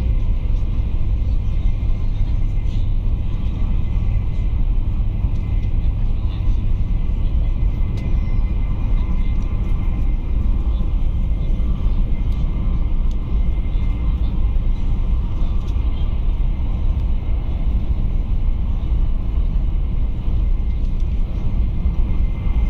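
Steady low rumble inside a high-speed train's passenger cabin running at speed: wheel, track and air noise heard through the carriage.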